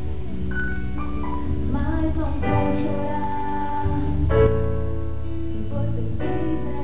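Song with a female voice singing over piano or keyboard accompaniment and a steady bass.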